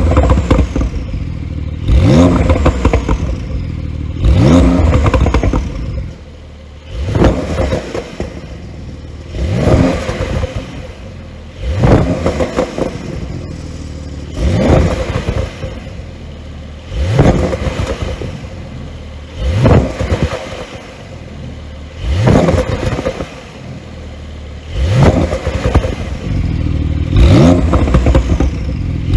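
Porsche 911 992 Carrera S twin-turbo flat-six being blipped over and over, a quick sharp rev about every two and a half seconds. Each rev drops back with crackling pops from the exhaust.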